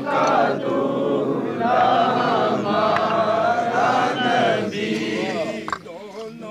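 A group of men's voices chanting a drawn-out, melodic religious recitation together. There is a brief pause near the end.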